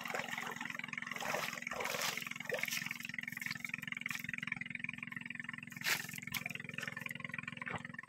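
Water splashing and sloshing as people wade and swim in a lake, in irregular bursts, over a steady low hum.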